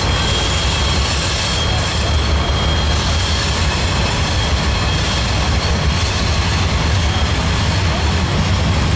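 Covered hopper cars of a freight train rolling past on a curve: a steady, loud low rumble of steel wheels on rail, with a faint high wheel squeal.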